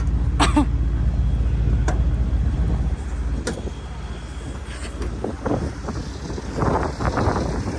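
Engine of a fork-equipped machine idling with a steady low throb that drops away about three seconds in, followed by gusts of wind buffeting the microphone.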